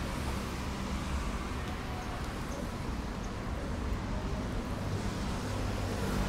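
Steady city street traffic noise: a low rumble of passing vehicles over a constant hiss.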